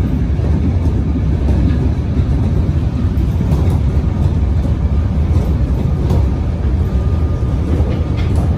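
Melbourne suburban electric train running: a steady low rumble with faint scattered clicks.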